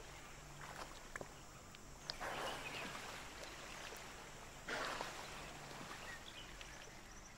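Asian elephant wading in a shallow muddy waterhole, faint sloshing and splashing of water, with two louder splashes about two and about five seconds in.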